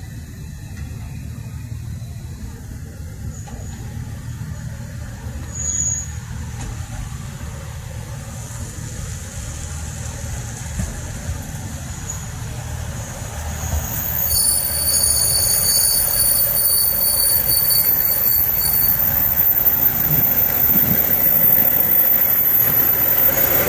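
A train rumbling along the track through the station, growing louder about fourteen seconds in, with high, steady squealing tones from the wheels.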